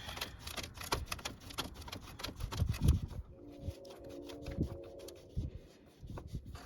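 Hand ratchet and socket clicking in quick strokes on a rusted battery ground-terminal bolt, with a few heavier knocks and a brief squeak in the middle as the bolt is forced.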